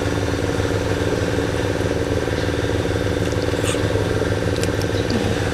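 Small engine driving a water pump, running steadily at constant speed while pumping water out of a canal.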